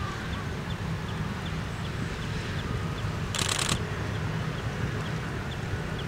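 Outdoor waterside ambience: a steady low rumble with faint, quickly repeated high chirps, and a brief harsh rattling sound about three and a half seconds in.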